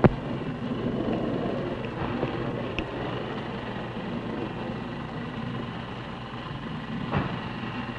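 Steady wind-like rumble and hiss on an outdoor field recording, with a sharp click right at the start and a dull thump about seven seconds in.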